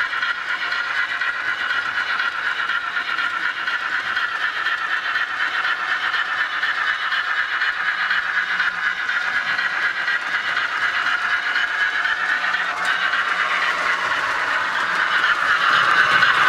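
Model trains running on the layout's track: a steady whir of small motors and wheels on rail, growing louder near the end as a steam locomotive with its coaches passes close.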